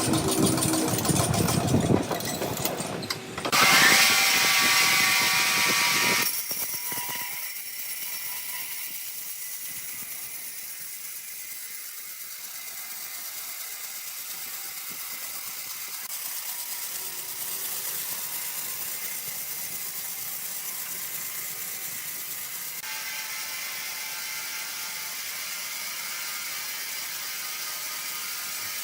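Wood-processing factory machinery running: loud for the first six seconds, then a quieter, steady mechanical hum and hiss that changes abruptly a few times.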